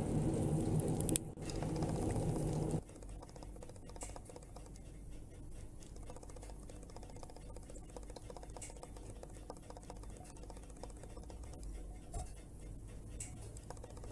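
Background music that stops about three seconds in, followed by a low hum with faint, scattered light clicks and ticks.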